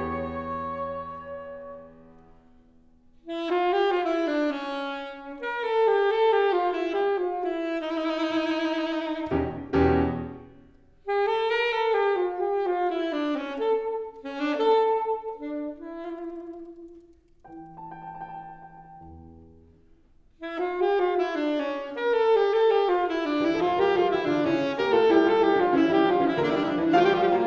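Live contemporary chamber music: a wind instrument plays a melodic line in short phrases separated by brief pauses, with low piano notes, and the ensemble grows fuller and denser over the last several seconds.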